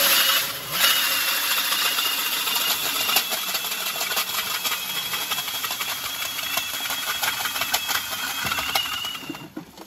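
Powered ice auger drilling a fishing hole through lake ice: the motor runs steadily while the spiral blades grind and scrape through the ice. It stops near the end, once the bit is through to water.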